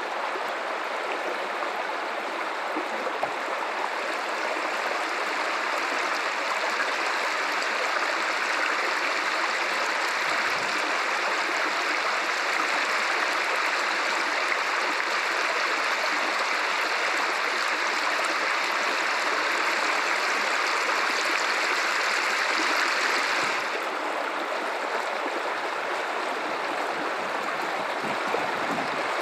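The Guadalupe River running: a steady rush of flowing water, which turns a little quieter and duller about three quarters of the way through.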